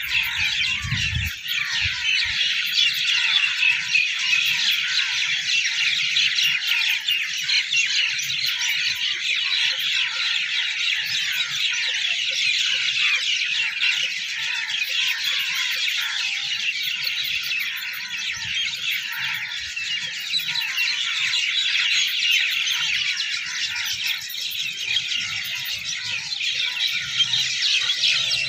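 A dense chorus of many small birds chirping and chattering at once, steady and unbroken.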